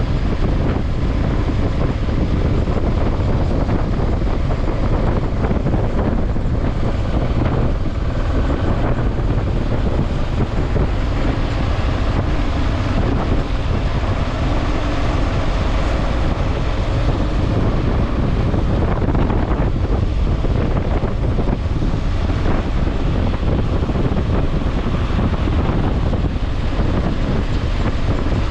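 Loud, steady wind noise on the microphone: a deep, even rushing with no distinct events.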